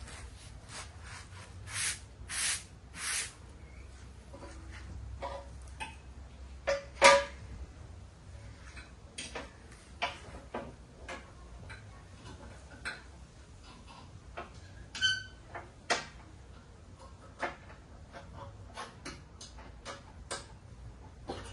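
Hand tools and metal parts clinking and knocking during mower deck spindle work: scattered clicks, three short scraping bursts about two seconds in, a loud clank with a brief ring about seven seconds in, and a short metallic ring about fifteen seconds in.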